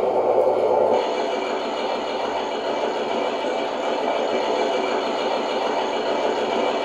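Sound unit of a Tamiya 1/16 Jagdpanther RC tank playing a custom tank engine sound through its small speaker. About a second in, as the tank comes to a halt, the engine note drops and settles into a steady idle.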